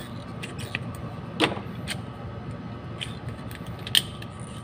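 A few light clicks and taps from wires being handled and routed at a magnetic contactor, the sharpest about a second and a half in and near the end, over a steady faint hum.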